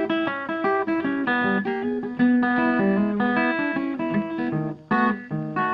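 Background music: a guitar picking a quick melody of separate notes, with a brief break just before five seconds in.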